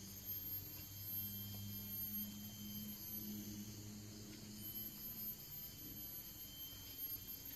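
Steady high-pitched drone of tropical forest insects, several even tones layered together, with a faint low hum swelling and fading in the first half.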